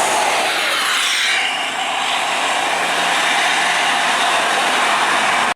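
A heavy road vehicle passing close by at speed: a loud, steady rush of engine, tyre and wind noise that drops in pitch as it goes past about a second in. No horn is sounding. The sound cuts off abruptly at the end.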